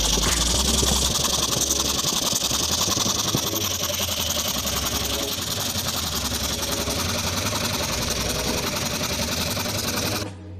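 Belt-driven single-cylinder air compressor pump, driven by a 1 HP Crompton electric motor, running steadily and pumping air into its 200-pound receiver tank as the pressure builds. The sound cuts off suddenly near the end.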